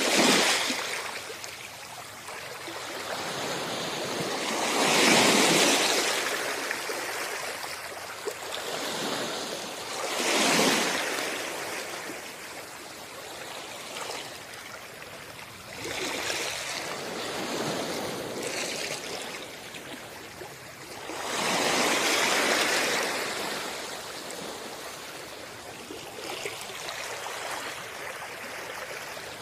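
Small sea waves washing onto a sandy beach. Each wash swells up and then fades, about every five seconds.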